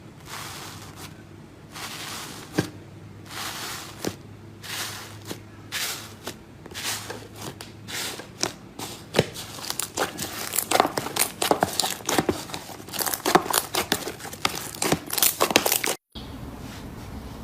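Slime being squeezed and kneaded by hand: a run of wet crackles and pops that grows busier and louder halfway through, then cuts off suddenly near the end.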